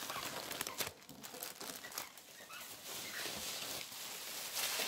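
Cellophane gift wrap crinkling and rustling as the wrapped package is picked up and moved, in irregular crackles with a few sharper clicks.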